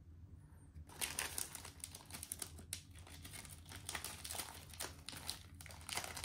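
Plastic and foil snack wrappers crinkling as individual Oreo cookie packs are handled inside their opened outer bag. The crackling starts about a second in, goes on irregularly and is loudest at the start and again near the end.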